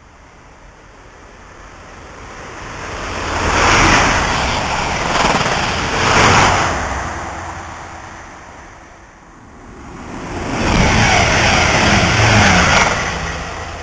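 Trains passing through a station at speed: a rush of wheel and air noise swells to a peak about four to six seconds in and fades. A second train builds up about ten seconds in, with a low engine hum under it, and falls away near the end.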